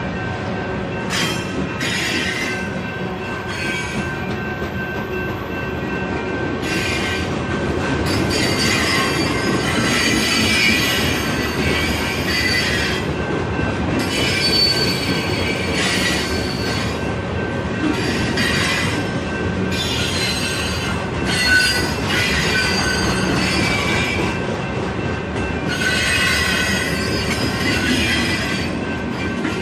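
Union Pacific freight cars rolling past over a steady rumble of steel wheels on rail, with the wheels squealing in repeated screeching stretches of a second or two each.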